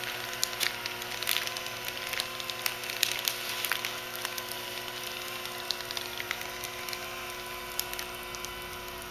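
Leister WEDGE hot-wedge welding machine running as it drives along a hem in polyethylene banner material: a steady motor hum with several constant tones, overlaid with irregular crackling clicks, busiest in the first few seconds.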